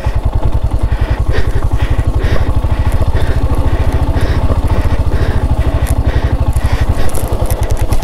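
Single-cylinder-style motorcycle engine running steadily at low revs as the bike is ridden slowly on a snowy road. A light clicking about twice a second rides over the engine.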